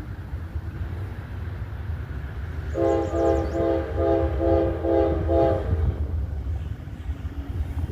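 Norfolk Southern freight locomotive's multi-chime air horn sounded as a quick run of about six short blasts, over the low rumble of the train.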